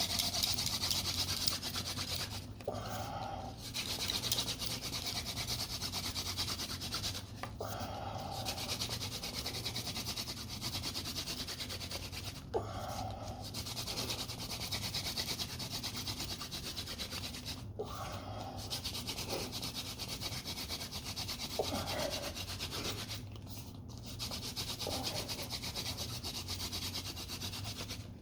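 Hand drill friction fire: a mullein stalk spindle spun between the palms, grinding into a cottonwood hearth board with a steady dry rubbing rasp. The rasp breaks off briefly about every five seconds, then resumes.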